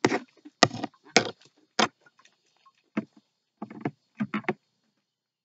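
A series of about nine sharp, irregular knocks, the last three quickly one after another, then they stop.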